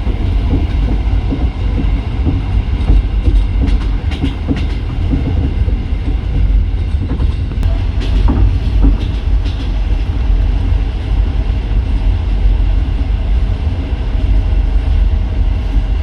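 Passenger train running along the track: a steady, heavy low rumble with the clickety-clack of wheels over rail joints and scattered sharp clicks, most of them a few seconds in and again around the middle.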